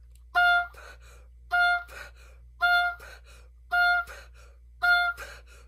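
An oboe plays five short notes of the same high pitch, about one a second, with a quick gasping breath taken in after each note. This is breathing in at every rest, the way oboists breathe when they are not taught to breathe out as well.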